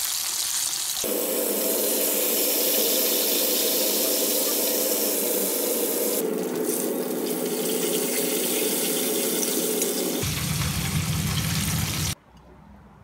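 Breaded chicken fillet deep-frying in a pan of hot oil: a steady sizzle that shifts in tone a few times and drops away near the end.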